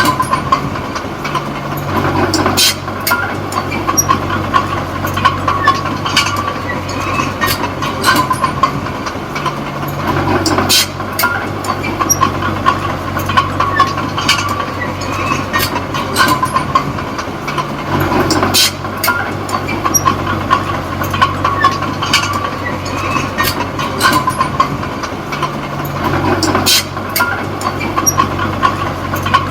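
Diesel engine of a small D20P crawler bulldozer running under load, its note shifting in a repeating cycle about every eight seconds as it works. Frequent sharp clanks and rattles from the steel tracks and blade run through it.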